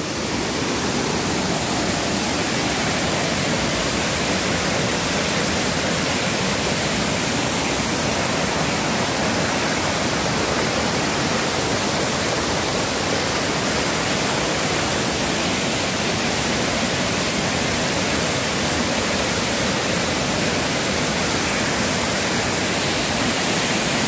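Whitewater stream rushing over rock ledges and a small waterfall: a steady rush of water.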